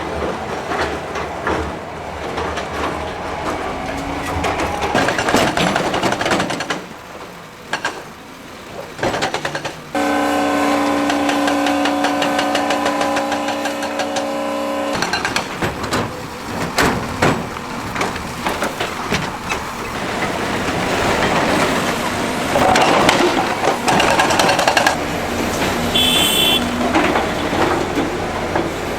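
Heavy construction machinery at work: diesel engines running, with clanks and knocks. About ten seconds in, a steady tone holds for about five seconds.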